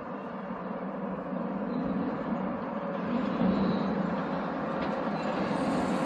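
Steady rumble of passing vehicle noise that grows louder over a few seconds, with a faint whine in it.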